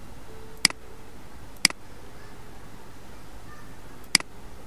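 Three sharp computer mouse clicks: two a second apart, then a third about two and a half seconds later, over a steady low background hiss.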